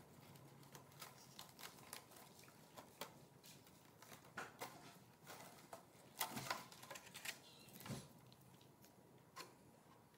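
Masking tape being peeled off a clear plastic RC truck body and the thin body shell being handled: faint, irregular crackles and ticks, with a busier, louder cluster about six to eight seconds in.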